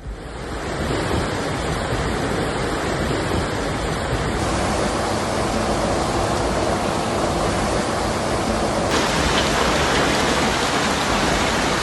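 Steady, dense rushing of heavy rain and running water in a storm. The tone shifts about four seconds in and again about nine seconds in.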